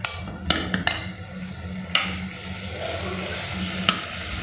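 A steel spoon stirring beans and carrots frying in a steel pressure cooker, knocking and scraping against the pot several times over a steady sizzle.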